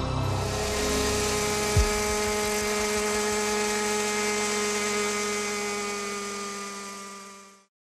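A modified Vario gasoline-trainer RC helicopter with a 1.8 m rotor, its gasoline engine and rotor running at a steady pitch: a high whine over a steady hum. There is a single short knock about two seconds in, and the sound fades out just before the end.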